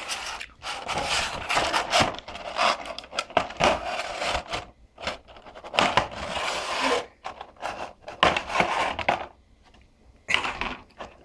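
Figure packaging being handled during an unboxing: irregular rustling and scraping with many small knocks against a table, easing off near the end.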